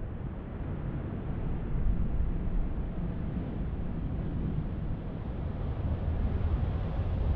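Jet engines of a Boeing 787 airliner giving a steady low rumble as it rolls out along the runway just after touchdown, swelling slightly about two seconds in.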